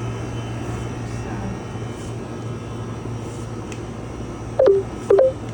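Steady low mechanical hum of running machinery, a compressor drone with faint steady high tones above it. Near the end, two short, loud, sharp sounds come about half a second apart.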